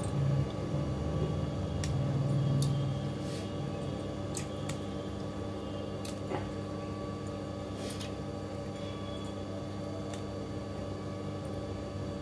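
Small knife clicks and snips as green chillies are cut by hand, a dozen or so scattered through, over a steady low hum, with a low rumble during the first three seconds.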